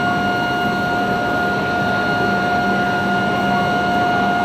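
A steady electronic signal tone held on one unchanging pitch, over the steady background hum of a station platform.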